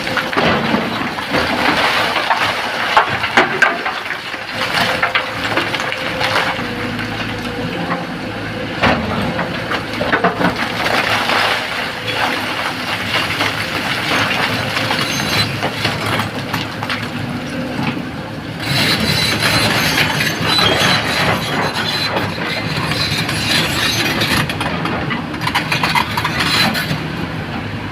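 Excavator working: a diesel engine running under load with frequent knocks and clatter, growing harsher about two-thirds of the way through.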